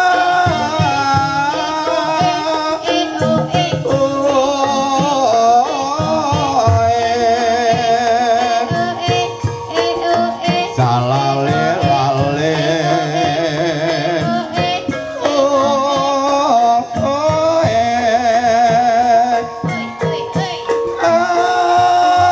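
Javanese gamelan music for the ebeg horse dance, with a singer's long, wavering vocal line held over steady instrument tones and drums.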